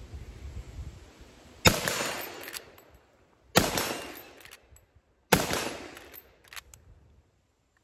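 Three shots from a Marlin 336 lever-action rifle in .30-30, about two seconds apart, each dying away over about a second, with faint short clicks after each shot.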